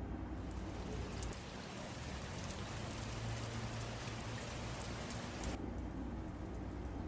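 Steady rain, a dense hiss scattered with the ticks of single drops. About five and a half seconds in the upper part of the hiss cuts off suddenly, leaving fainter rain and drips over a low hum.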